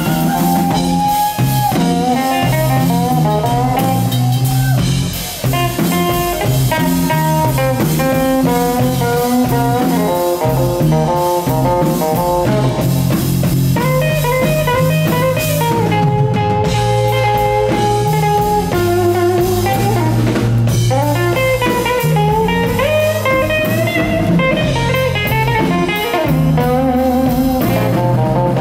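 Live blues band: a sunburst semi-hollow-body electric guitar plays lead lines over drums and bass at a steady beat.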